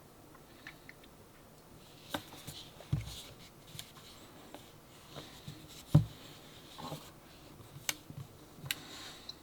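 Hands handling a Samsung Galaxy Buds Plus retail box and its packaging: scattered clicks and rustling, with two soft thumps about three and six seconds in, the second the loudest.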